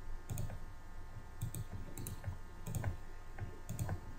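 Computer mouse button clicking about five times at an uneven pace, each click a sharp tick, some doubled as press and release, with a soft low thump. The clicks are the points being set for dimensions in CAD software.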